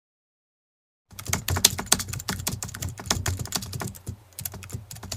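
Rapid computer-keyboard typing clicks, starting about a second in after silence: a typing sound effect laid under on-screen text appearing letter by letter.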